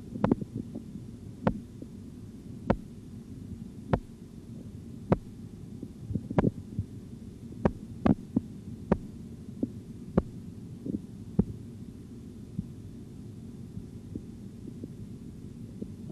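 Korotkoff sounds heard through a stethoscope as a blood-pressure cuff deflates: sharp, regular taps about every 1.2 seconds over a steady low rumble, with a few irregular extra knocks among them. The taps stop about eleven seconds in. The disappearance of the sounds marks the diastolic pressure.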